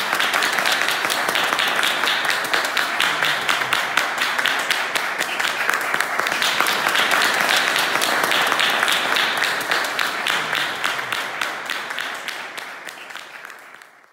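Applause from many people, a dense steady clatter of clapping that fades out near the end.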